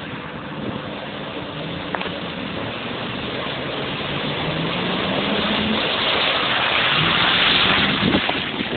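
Daihatsu Fourtrak 4x4 wading through a muddy pond, its engine running under load with the note rising about halfway through, while water surges and splashes around the body. It grows steadily louder as it comes close.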